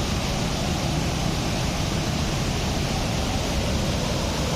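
Steady, even rush of water falling at a small waterfall.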